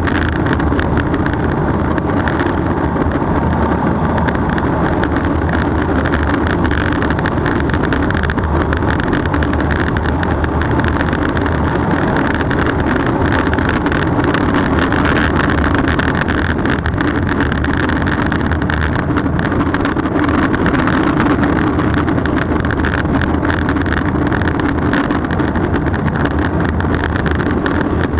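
Street luge wheels rolling fast on asphalt with rushing wind, a steady loud rolling noise that doesn't let up.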